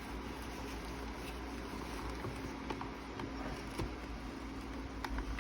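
Steady low hum and hiss, with a few faint light clicks scattered through.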